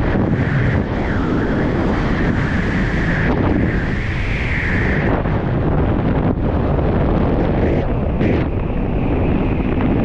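Wind rushing over a helmet camera's microphone while descending under an open parachute canopy, with a wavering higher whistle in the first half.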